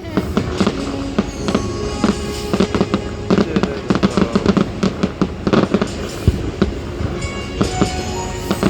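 Fireworks display going off: many bangs and crackles in quick succession throughout.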